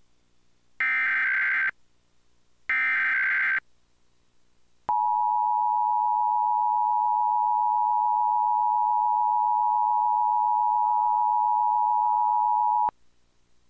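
Emergency Alert System test tones. The last two of the three SAME header data bursts, each a harsh electronic chirp about a second long with a second's gap between, are followed about a second later by the steady two-tone EAS attention signal (853 and 960 Hz together). The attention signal holds for about eight seconds and cuts off sharply.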